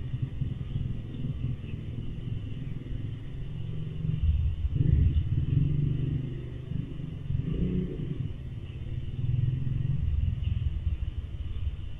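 Low, uneven rumble that swells loudest twice around the middle, in the manner of vehicles passing at a distance.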